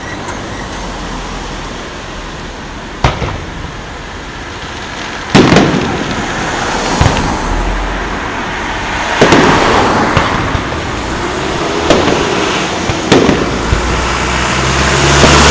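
Aerial firework shells bursting overhead: a sharp bang about three seconds in, a louder boom a couple of seconds later, then several more bursts, each trailing off in a rumbling echo, with a low rumble building near the end.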